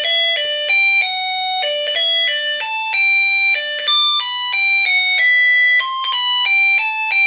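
Snap Circuits Jr. music IC playing its electronic melody through the kit's small speaker: a quick tune of short, buzzy beeping notes that change pitch about four times a second. The tune was set off by a tap on the whistle chip, which works as the circuit's tap sensor.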